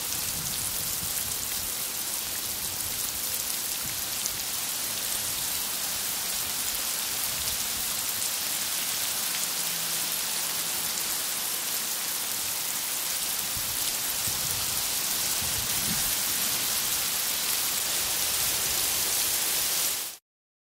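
Heavy rain falling steadily, a dense even hiss that cuts off suddenly near the end.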